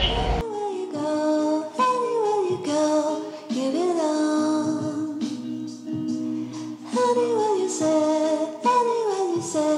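Background music: a song with a sung vocal line over repeated notes, coming in abruptly about half a second in as the train noise cuts off.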